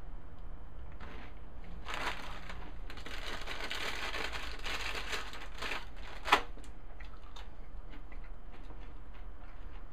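Hands crumpling and crumbling something dry over a plastic tub: a crinkling, rustling noise lasting a few seconds, then one sharp tap.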